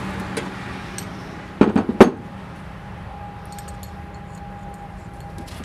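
Steel clinking as a chisel bit is handled and fitted into a pneumatic air hammer, with a quick cluster of sharp clinks about two seconds in.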